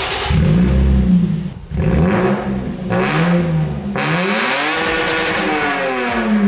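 Lexus IS200's naturally aspirated Toyota 1G-FE straight-six being revved at a standstill, its exhaust running without the rear muffler. The revs rise and fall four times, the last rev slower and higher than the others.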